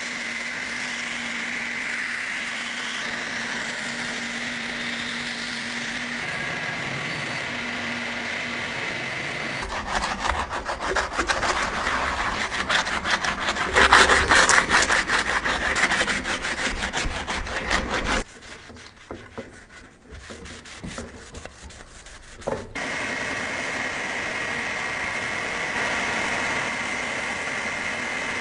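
Hand-tool scraping and rubbing, like sawing, filing or sanding. A run of quick, even strokes starts about ten seconds in, there is a quieter spell around twenty seconds, and then steady scraping resumes.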